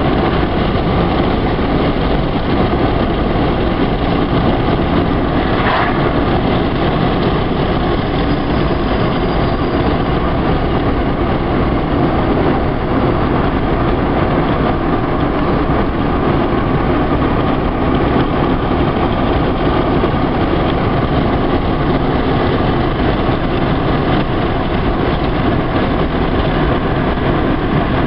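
Steady engine and road noise heard from inside a moving car at cruising speed, with a brief click about six seconds in.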